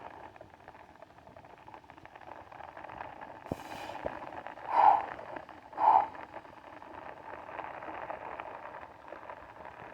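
Forceful breaths from a man straining through one-arm presses of a 40 kg kettlebell, with two loud ones about a second apart near the middle. Light rain patters steadily underneath.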